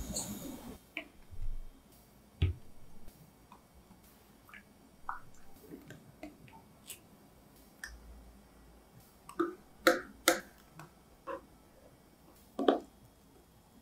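A small wire whisk clinking and tapping against a glass bowl while a milky mixture is stirred: scattered light clicks and taps at irregular times, a few louder ones about ten seconds in and again near the end.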